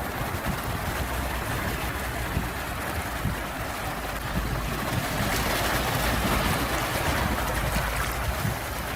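Sea waves washing in a steady, unbroken wash of noise with a deep low rumble, swelling a little about five seconds in.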